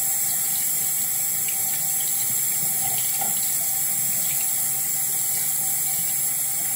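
Water running steadily from a bathroom sink faucet, an even hiss.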